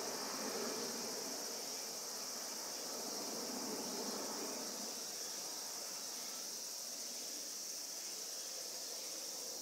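Steady high-pitched chirring of crickets, over a faint broad rumble from a jet airliner passing overhead.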